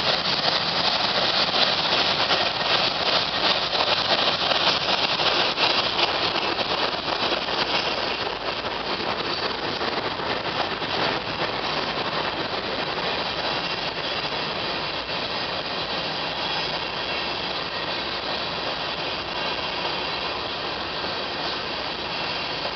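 Freight train of covered hopper cars rolling past, steel wheels on rail giving a steady rolling clatter with rattling and faint clicks, easing a little after about eight seconds.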